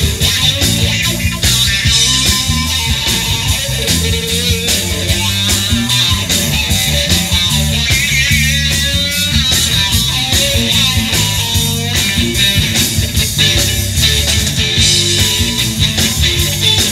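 Live blues-rock band playing an instrumental passage: electric guitar over electric bass and drum kit, with a wavering, bent guitar note about halfway through.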